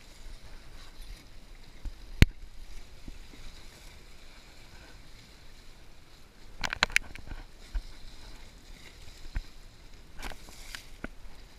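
Sea water sloshing and splashing against a boat's side, with a single sharp knock about two seconds in and a quick run of clicks and splashes about seven seconds in.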